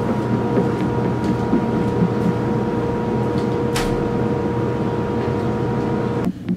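Steady mechanical drone with a constant whine, as from a fan or compressor running in a spray-finishing area, with one short hiss about four seconds in; the drone cuts off abruptly near the end.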